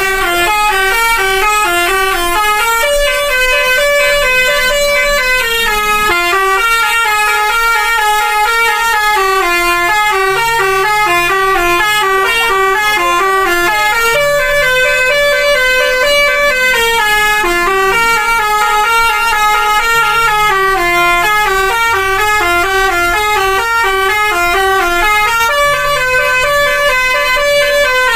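Indonesian 'telolet' multi-tone musical bus horn playing a winding tune in quick stepped notes, the phrase repeating over and over without a break.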